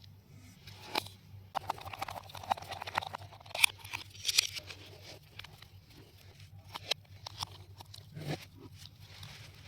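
Irregular crunching, scraping and clicking handling noises, busiest in the first half, over a steady low hum.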